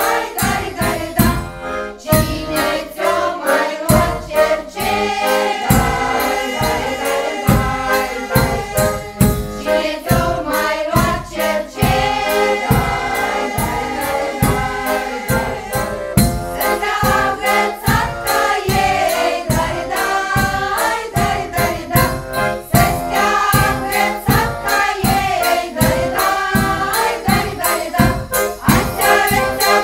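Women's folk choir singing a Romanian folk song in unison, accompanied by an accordion and a frame drum struck with a beater, the drum keeping a steady beat of about two strokes a second.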